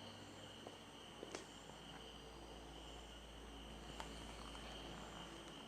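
Faint, steady chirring of crickets, with a few soft clicks of the Rubik's cube being turned, about a second in and again near four seconds.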